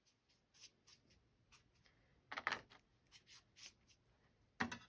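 Paintbrush brushing across watercolor paper in short, scratchy strokes. One louder stroke comes about halfway through and a sharp tap near the end.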